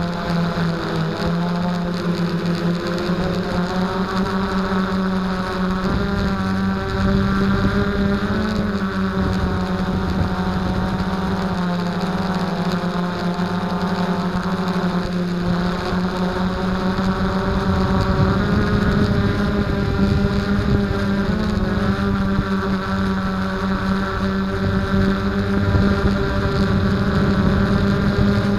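DJI F330 Flame Wheel quadcopter's brushless motors and propellers whining, heard from on board, with several tones that drift up and down in pitch as the throttle changes.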